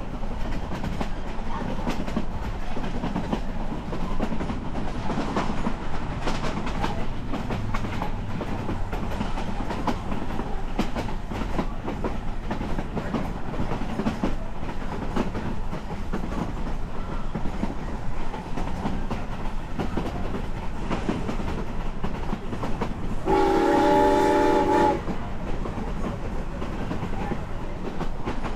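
Narrow-gauge passenger train rolling along the track with a steady rumble and clatter of wheels on rail. Near the end, the steam locomotive's whistle sounds once, several tones together, for about a second and a half.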